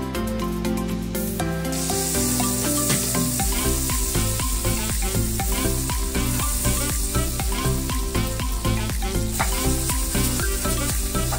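Butter sizzling and foaming as it melts in a hot nonstick wok, stirred with a metal spoon, with a steady hiss that starts about two seconds in. Near the end, diced red onion and garlic are frying in the butter. Background music plays throughout.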